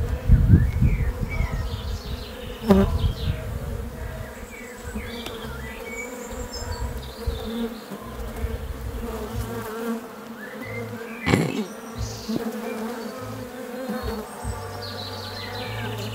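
A honeybee swarm buzzing steadily as it walks into a nucleus hive box. There is a low rumble from the phone being handled in the first few seconds, and two sharp knocks about 3 and 11 seconds in.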